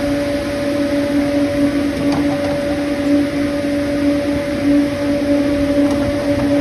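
Steady drone of machinery running, a constant hum with one strong pitch and a weaker one an octave above.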